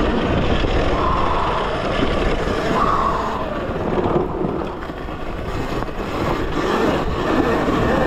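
Talaria Sting electric dirt bike being ridden hard off-road: a steady rush of wind on the microphone mixed with tyre and drivetrain noise, easing briefly about five seconds in.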